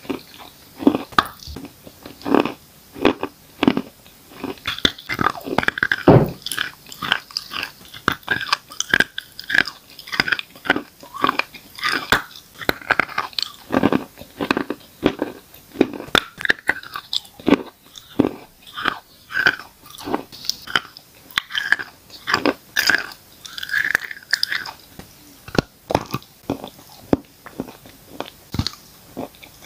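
Close-miked biting and crunching chewing of chalk coated in wet gray paste: a steady run of crisp crunches, several a second.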